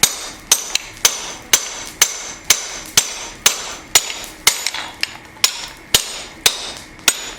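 Blacksmith's hammer striking hot steel on the anvil in a steady rhythm, about two blows a second, each with a short high ring. The blows are cutting through the bar to part the knife blank from the stock.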